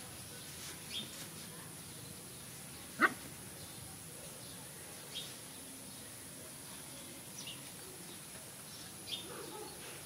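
A puppy gives one short, sharp yip about three seconds in. A few faint, short high chirps come and go in the background.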